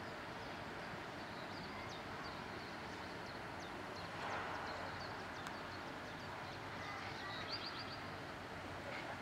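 Steady background noise of a railway station, with short high bird chirps scattered through it and a quick run of them about seven and a half seconds in. A brief rushing noise swells about four seconds in.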